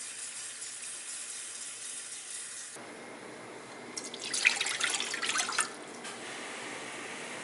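Kitchen faucet running into a plastic measuring cup, a steady hiss that stops abruptly about three seconds in. Then water is poured from the cup into a non-stick skillet, splashing for about two seconds.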